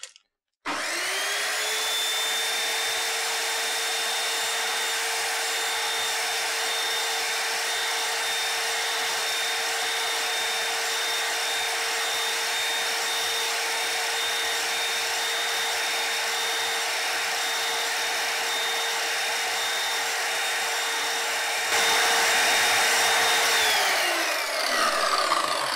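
Electric chop saw motor starting and spinning up to a steady whine, running while it slices a carrot into rounds. It grows louder for the last couple of seconds, then is switched off and its pitch falls as the blade winds down.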